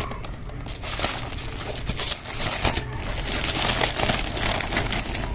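Plastic courier bag crinkling and rustling in irregular crackles as it is handled.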